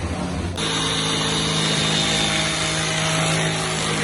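An electric power tool's motor running steadily while cutting wood, starting abruptly about half a second in, with a steady high whine over its hum.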